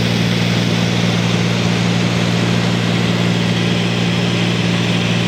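Steady drone of a Cessna 210 Centurion's single piston engine and propeller, a constant low hum with an even rushing noise over it.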